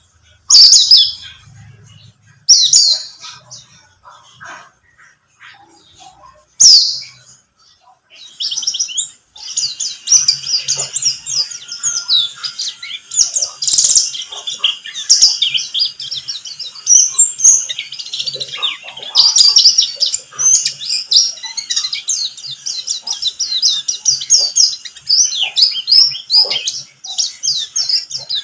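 White-eye (pleci buxtoni) calling and singing: three single loud, high chirps in the first seven seconds, then from about nine seconds a fast, continuous, high twittering song.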